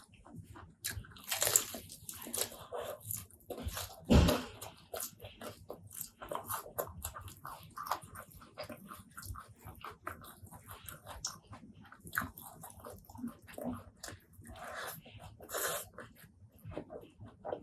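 Close-miked eating sounds: chewing and mouth clicks with several crunchy bites, the loudest a little after four seconds.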